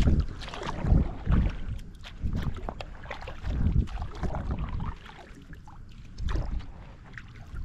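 Wind gusting against the microphone in uneven low rumbles, with water lapping and splashing around a kayak.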